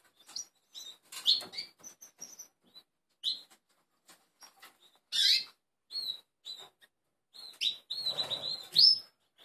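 Small caged birds chirping: short, high chirps scattered with pauses between, one louder call about halfway, and a quicker run of chirps near the end over a brief rustle.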